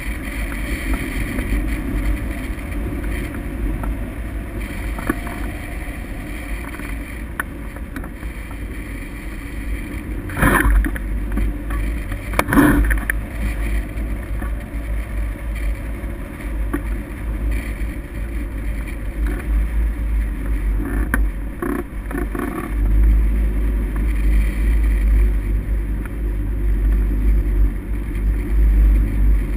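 Airflow rushing and buffeting over the microphone of a camera mounted on a hang glider in flight, a steady rumbling noise. Two short knocks about ten and twelve seconds in, and the rumble grows louder in the last third.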